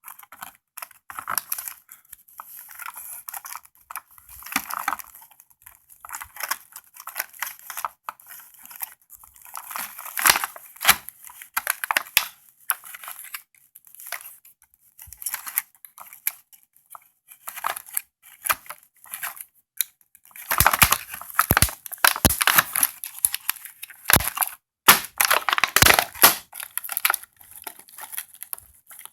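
Hands working at plastic toy packaging, undoing twist ties: irregular crinkling and rustling of plastic and cardboard, with louder bursts of crumpling about two-thirds of the way through.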